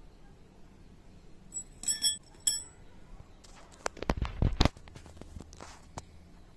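A chick held in an African bullfrog's mouth gives a few short, high peeps about two seconds in, then one more. About a second and a half later comes a quick cluster of knocks and thuds, the loudest sound here.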